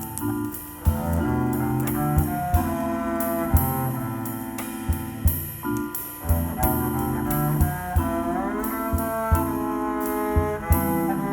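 Live jazz trio playing a relaxed ballad: vibraphone notes ringing over double bass, with cymbal strokes from the drum kit.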